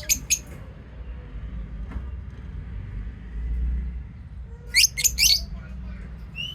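Pet lovebirds giving short, shrill chirps: a quick run of three at the start and another run of about four around five seconds in.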